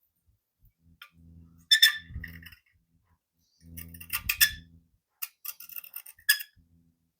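Small steel pieces clinking against each other and a metal surface as they are handled and set down, a dozen or so sharp clinks in three clusters, with a low hum under the first two.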